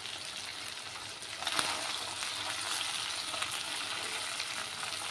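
Small tangra fish shallow-frying in mustard oil in a wok, a steady sizzle, with a couple of light taps of a wooden spatula about a second and a half in.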